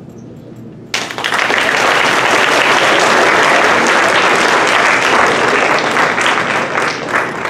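Audience applauding: a burst of clapping breaks out suddenly about a second in and holds steady, starting to thin out near the end.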